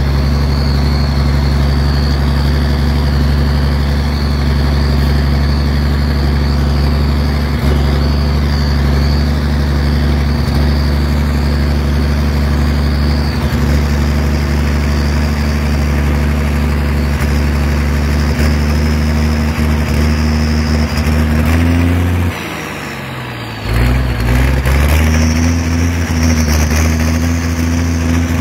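Zetor Crystal 16145 tractor's six-cylinder turbo diesel running steadily as it drives, heard close to its vertical exhaust stack, with a steady high whine above the engine. About three-quarters of the way through, the revs drop and the sound falls away for a second or so, then the engine picks up again.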